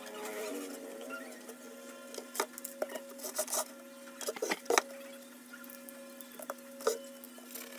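Corrugated cardboard being handled and pressed by hand: irregular rustles and scrapes with several sharp taps, over a steady hum.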